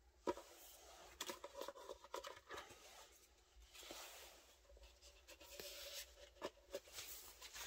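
Faint handling of paper and card: soft taps and short scraping rustles as an instant photo is picked up, turned over and slid along a photobook's paper page toward its pocket.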